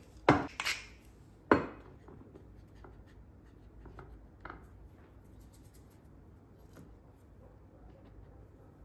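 A wooden pepper mill ground with a couple of twists, then a single knock about a second and a half in. After that come faint soft rubbing and patting sounds as hands mix seasoned flour on a plate and press a cross-cut veal shank into it.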